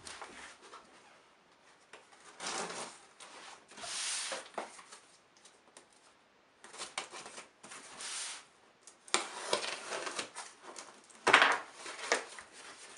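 Packing tape on a cardboard box being slit with a small hand tool and torn open, in a run of short scraping, tearing rasps with pauses between. Near the end, the cardboard flaps are pulled open with the loudest tear and rustle.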